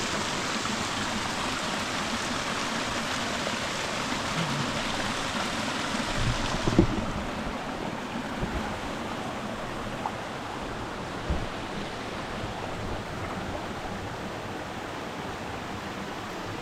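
A steady rushing noise like running water or wind, which loses its hiss and turns duller about seven seconds in. A few faint knocks come through it.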